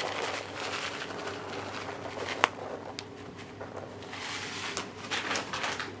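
Porridge oats being scattered onto a carpet: light rustling and pattering in several short bursts, with one sharp click about two and a half seconds in.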